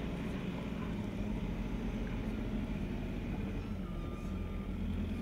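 A steady low engine rumble, as of heavy machinery or a truck running nearby, with a faint thin whine near the end.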